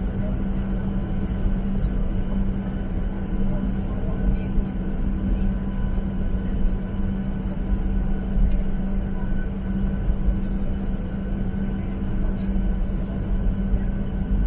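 Jet airliner cabin noise while taxiing on the ground: a steady low rumble with a constant hum.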